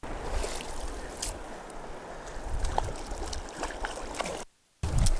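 River current rushing steadily around a wading angler, with scattered small splashes and knocks. The sound cuts out completely for a moment near the end.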